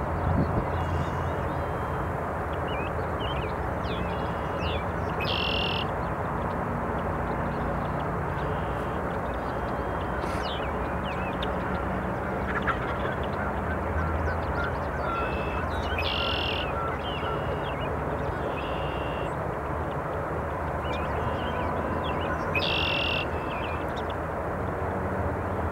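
Birds calling in a field: three loud short calls a few seconds apart and scattered faint chirps over a steady rushing background.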